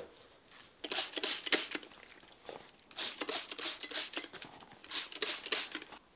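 Hand-held pump spray bottle squirting mist onto a leather boot, in three bursts of several quick sprays each.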